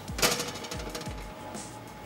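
A metal pizza pan clatters against the oven rack as it is pulled out: one loud clank with a short metallic ring about a quarter of a second in. Background music with a steady beat plays under it.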